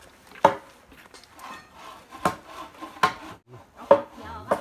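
Food being chopped on a wooden cutting board: about five sharp chops at uneven intervals.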